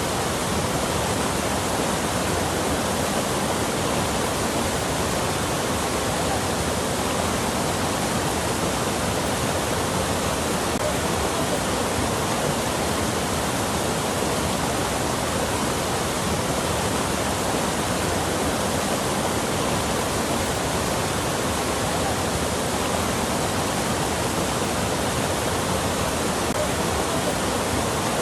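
Flowing water rushing steadily: a dense, even hiss with no breaks or changes.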